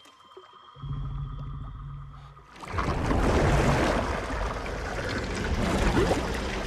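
A low rumble starts about a second in. From about three seconds in it gives way to a loud, sustained rush of water pouring and splashing as a giant moss-covered toad-like creature heaves itself up out of a pond.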